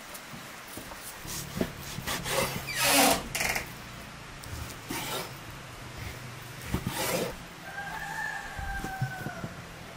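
A large knife slices through raw lamb fat on a wooden cutting board, giving several scraping, rubbing strokes of the blade against the fat and the wood. Near the end a chicken gives one drawn-out call.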